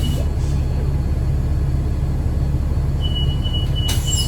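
Interior of a 2009 Gillig BRT 40-foot transit bus with a Voith transmission, running with a steady low drivetrain rumble. A high-pitched, evenly pulsing whine, the bus's unexplained weird sound, drops out and comes back about three seconds in. There is a sharp click near the end.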